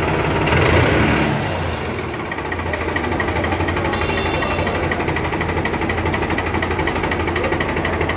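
New Holland 3600-2 TX tractor's three-cylinder diesel engine idling steadily with no hunting, each cylinder's firing heard separately in a 'ghad ghad ghad' chug. It swells briefly louder about half a second in.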